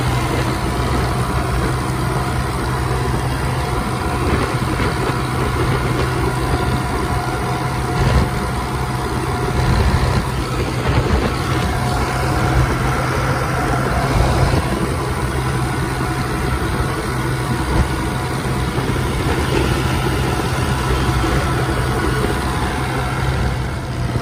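Ford 3600 tractor's three-cylinder engine running steadily while the tractor drives along the road, with wind rushing past.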